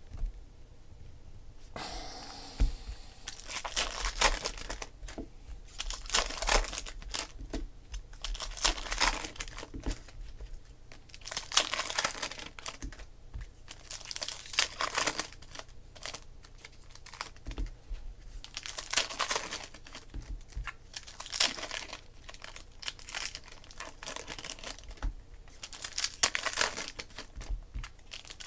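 Foil wrappers of baseball card packs being torn open and crinkled by hand. After a quiet couple of seconds, bursts of crinkling repeat one after another.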